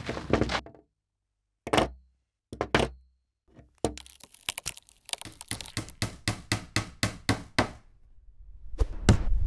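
Sound-effect knocks and thunks: a few single hits, then a quick, even run of knocks at about four a second, then a rising rush of noise with a sharp crack near the end.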